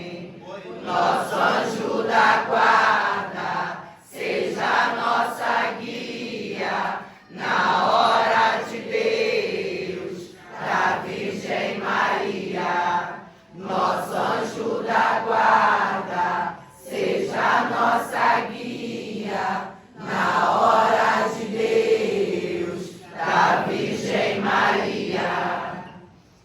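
A group of voices chanting together in short phrases of about three seconds each, with brief breaks for breath between them. This is a devotional chant sung in unison.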